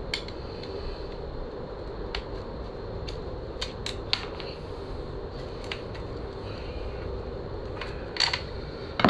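Scattered sharp metallic clicks and taps of hand tools and small parts being handled during motorcycle disassembly, heaviest a few seconds in and near the end, over a steady background hum.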